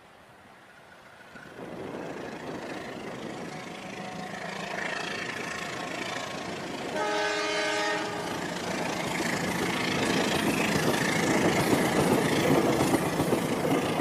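Toy train running along a track through shallow water: a steady rushing of motor and water that grows louder, with a train horn sounding once for about a second midway.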